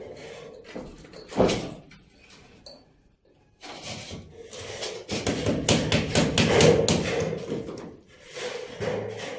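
Knocking and clattering: one sharp knock, a brief lull, then a fast, irregular run of knocks and scraping that peaks shortly before a short drop, then picks up again.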